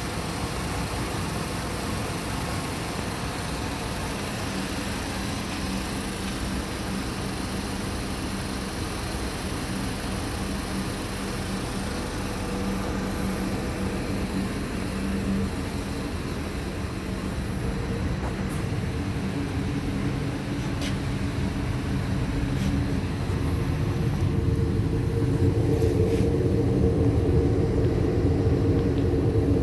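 2008 Lincoln MKZ's 3.5-litre V6 idling steadily. It grows louder and fuller over the last several seconds, as it is heard at the exhaust outlet.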